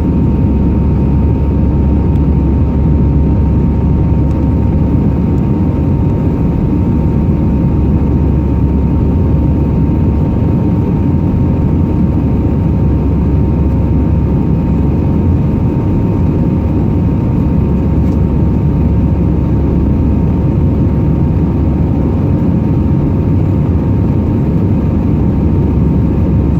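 Steady cabin noise of an Airbus A319 in flight, heard from a window seat: a loud, even jet-engine and airflow rumble with two faint steady hums on top.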